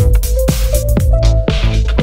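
Electronic dance music with a heavy bass, a steady beat and a repeating synth melody.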